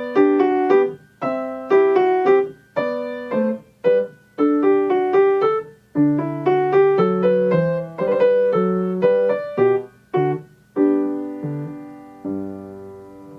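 Solo piano music: a melody over chords, played as separate struck notes that die away, ending on a held chord that fades out over the last second or so.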